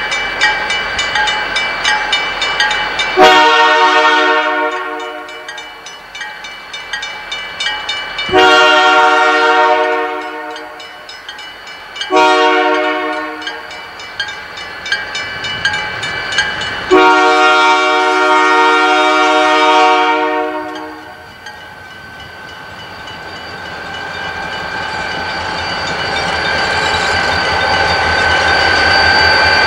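Diesel freight locomotive's multi-note air horn sounding the grade-crossing signal: two long blasts, a short one and a final long one. Under it, a railroad crossing bell rings steadily. After the last blast, the locomotive's diesel engine grows louder as it draws up to the crossing.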